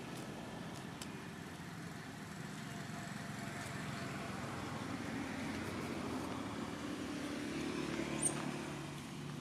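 A low, steady outdoor rumble that swells from about five seconds in and eases near the end, with a short high squeak about eight seconds in.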